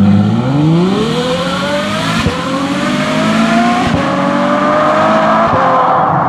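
Ferrari F12berlinetta's 6.3-litre V12 accelerating hard away, its note climbing steeply through each gear and dropping sharply at three upshifts, about every one and a half to two seconds.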